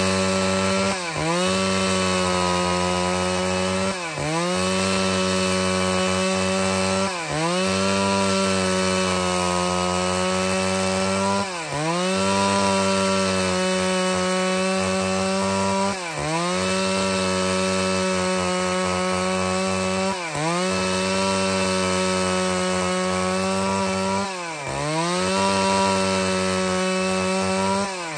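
Stihl MS381 two-stroke chainsaw running under full throttle, ripping boards lengthwise from an angico preto hardwood log. Its engine note holds steady and dips briefly, then recovers, about every four seconds.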